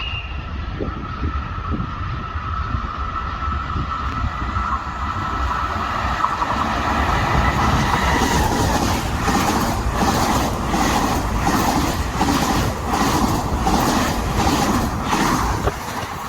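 Train passing: a steady rumble with a faint whine, then from about halfway through a regular, fairly quick clatter of wheels over rail joints that grows louder.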